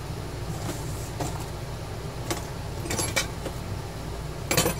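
Scattered small metallic clicks and taps from a little screwdriver working the tabs on a battery cell, with a louder cluster of clinks near the end, over a steady low hum.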